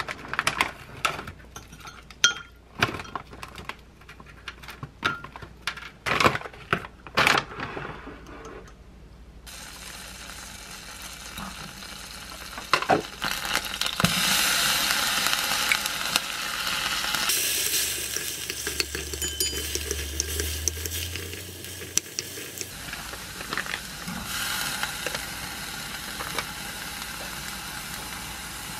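Plastic zip bag of frozen mixed seafood crinkling and rustling with sharp clicks as it is handled; then, from about a third of the way in, seafood and minced garlic sizzling in a frying pan as they are stirred with a spoon.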